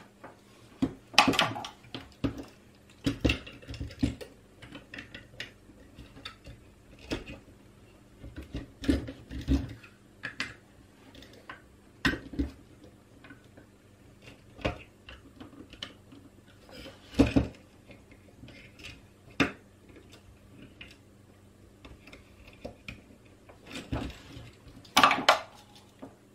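Small tools and a circuit board being handled on a workbench: scattered clicks, taps and clatter, with a few louder knocks as a board holder is set up and the board clamped into it. A faint steady hum runs underneath.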